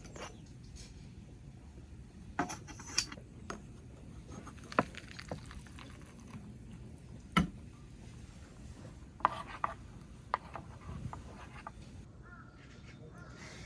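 Cookware and utensils being handled: scattered clinks and knocks, a handful of separate sharp strikes with pauses between them.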